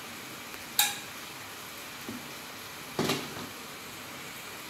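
A few sharp metal clinks and knocks from a steel kadai being handled on a gas-stove burner: a bright clink about a second in and a heavier knock a couple of seconds later. A steady faint hiss runs underneath.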